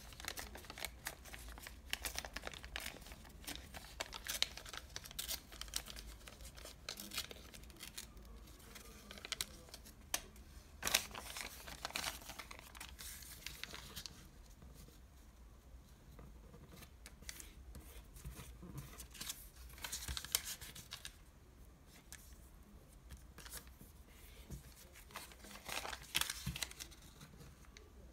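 Thin paper from a KFC french-fries bag crinkling and crackling as it is handled, flattened and creased by hand. The crackles are dense for the first half, then come in sparser clusters of crisp creasing sounds.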